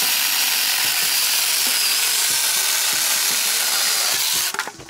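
Saker cordless brushless mini chainsaw cutting through a branch: a steady, high-pitched buzzing hiss of the chain in the wood, with a motor whine that rises as it spins up at the start. It cuts off about four and a half seconds in.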